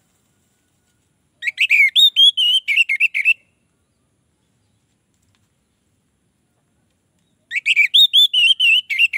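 Orange-headed thrush singing: a two-second phrase of rapid, varied whistled notes about a second and a half in, then a pause, and another phrase near the end.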